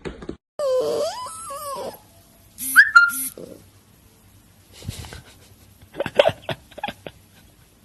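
A husky dog vocalizing: a pitched whine that glides up and down for about a second, then shorter yips and vocal bursts in separate bouts with pauses between.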